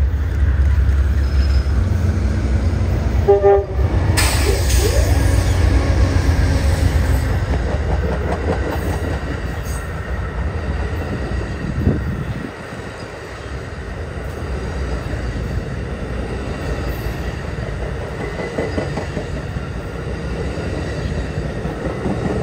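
An Amtrak GE Genesis P42DC diesel locomotive passes with a heavy engine rumble, and a short horn sound comes about three seconds in. A long string of bilevel Superliner passenger cars then rolls by at speed, wheels clicking over the rail joints with a faint squeal.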